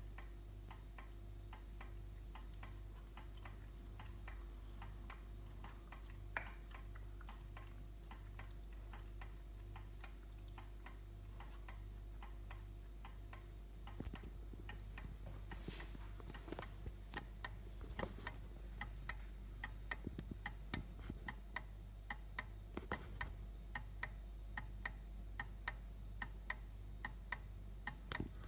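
Fully restored English 8-day Victorian oak wall clock's pendulum movement ticking steadily in full working order, over a faint low hum. The ticks grow louder about halfway through.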